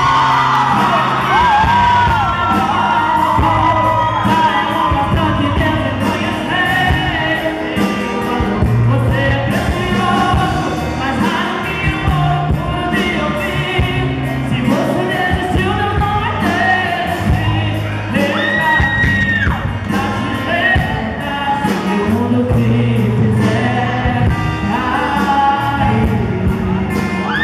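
A woman sings a Portuguese-language gospel song live into a microphone, backed by a band of acoustic guitar, drums and keyboard. The drums keep a steady beat under a bass line.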